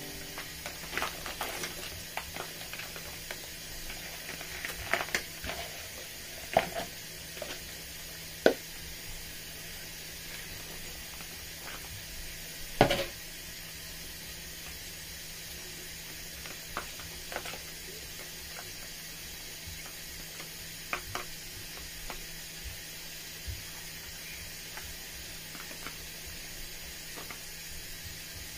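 Crabs and prawns being tipped from a metal bowl into a large metal pot of simmering palm-nut soup, with scattered knocks and clinks of metal on metal, the loudest about 13 seconds in. A steady low hiss from the simmering pot runs underneath.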